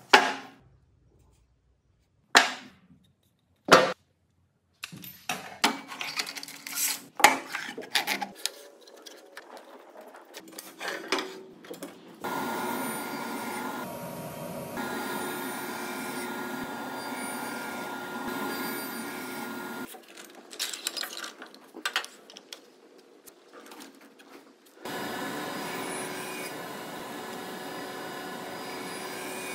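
Wooden blocks knocked down hard three times on a sliding table saw's steel table, then clattering as the fence and stops are set. The sliding table saw then runs with a steady tone, stops about twenty seconds in while more knocking follows, and starts running again near the end as a board is pushed through to cut a tenon.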